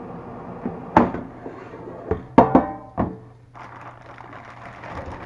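Air fryer basket being pulled out of a Farberware air fryer and set down on a countertop: a few hard clunks and knocks, the loudest about two and a half seconds in. A steady low hum and airy whoosh of the preheating fryer's fan run underneath.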